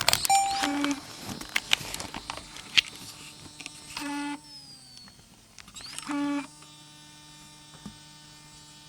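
Sony DCR PC115E MiniDV camcorder's mechanism being worked: a series of clicks and three short motor buzzes, then a steady electrical hum from about six seconds in.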